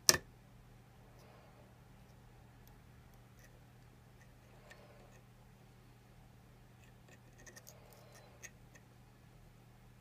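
Lock picking on a First Watch 6-pin padlock: one sharp metallic click right at the start, then faint ticks of the hook pick and tension wrench working the pins, with a few quicker ticks about three quarters of the way through.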